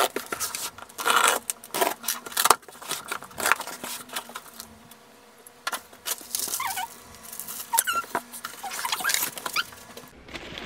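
A box cutter slits packing tape on a cardboard box, making a busy run of scratches, rips and clicks. In the second half, as the flaps are pulled open, there are a number of short squeaks.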